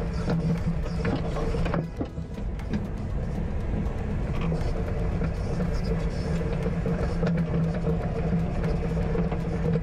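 Road noise of a 5th-gen Toyota 4Runner being driven, heard from beside the rear wheel under the truck: a steady droning hum over rumble and tyre and wind noise, with scattered short clicks and knocks.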